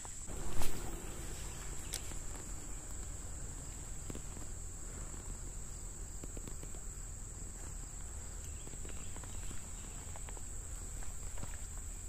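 Insects trilling in one steady, high-pitched drone, with a single sharp knock about half a second in.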